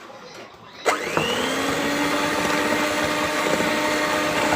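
Electric mixer switched on about a second in, its motor spinning up quickly and then running steadily as it beats the milk powder into cake batter.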